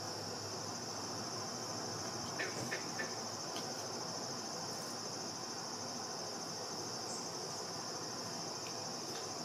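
A steady, high-pitched chorus of crickets. About two and a half to three seconds in come three short, sharp clicks.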